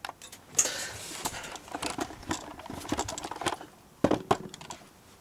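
Handling noise from a video camera being picked up and repositioned by hand: rustling and a rapid clatter of small clicks and taps, then two sharper knocks about four seconds in.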